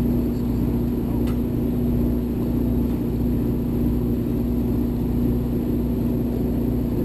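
Party boat's engines running steadily, a low drone with a constant hum underneath.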